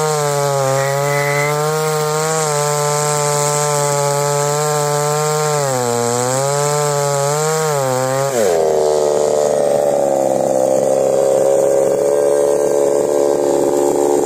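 Gasoline chainsaw on an Alaskan mill ripping lengthwise through a log under load, its engine pitch wavering and dipping briefly as the chain bogs in the cut. About eight and a half seconds in, the sound changes suddenly to a lower, slightly louder steady drone.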